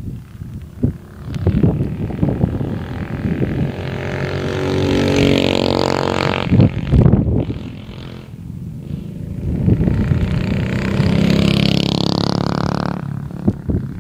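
Go-kart's small single-cylinder clone engine accelerating past, twice, its pitch climbing through each run. Gusts of wind buffet the microphone between the two runs.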